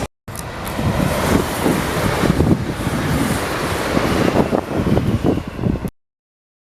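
Wind buffeting the microphone in irregular gusts over a steady rumble, cut off suddenly about six seconds in.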